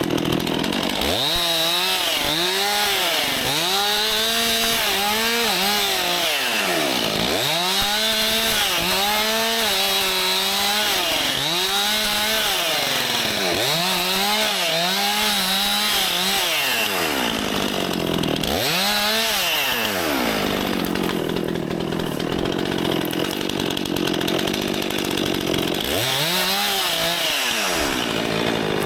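Stihl MS261 C-M two-stroke chainsaw limbing a felled tree. The engine pitch sags under load and climbs again, over and over, as it cuts through a run of branches in quick succession. There is a steadier stretch after the middle, then two more cuts later on.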